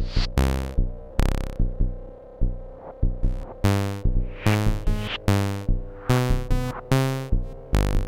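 Eurorack modular synthesizer playing an electronic pattern: sharp drum-machine-style hits in an uneven rhythm of about two a second, over a steady held tone, with pitched synth notes coming forward in the second half.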